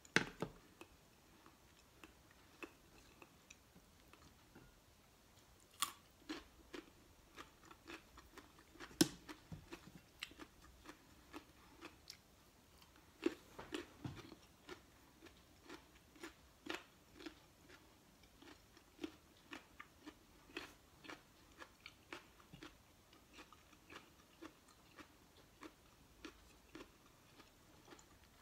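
A person chewing and biting food, mango, cheese and raw vegetables, with irregular mouth clicks and crunches close to the microphone. A few louder bites stand out in the first half.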